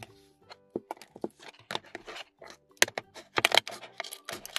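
Plastic shrink-wrap on a toy surprise egg crinkling and crackling as it is handled and cut with small scissors: a run of sharp crackles and snips, denser and louder in the second half.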